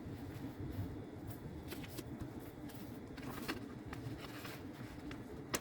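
Steady low background rumble with scattered light clicks and taps, and one sharper click near the end.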